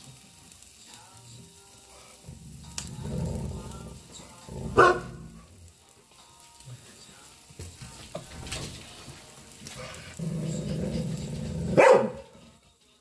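Dogs waiting by a grill: a low growl of about two seconds, then a single sharp bark, heard twice, about five seconds in and near the end. Meat sizzles faintly on the grill throughout.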